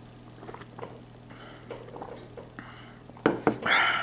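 Kitchen dishes and cutlery being handled, with faint scattered clinks and knocks, then a louder clatter of sharp knocks about three seconds in.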